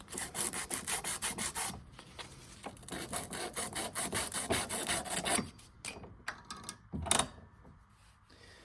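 A pipe end being sanded by hand in quick back-and-forth strokes, about five a second for around five seconds, cleaning the metal ready for flux and solder. A few light knocks follow, with one louder clunk near the end.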